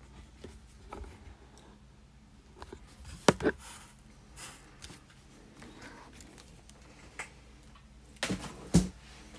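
A few sharp knocks and clicks of things being handled and set down on a desk, the loudest about three seconds in and again near the end, over a faint steady low hum.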